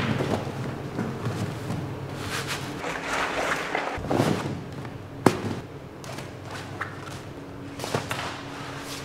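Coated waterproof tent fabric rustling and crinkling as it is shaken out and handled, with irregular thumps and a sharp snap about five seconds in.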